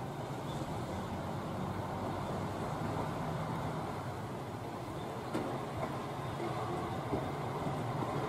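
JR West KiHa 120 single-car diesel railcar with its diesel engine running in a steady low hum as it moves off slowly through the station's points.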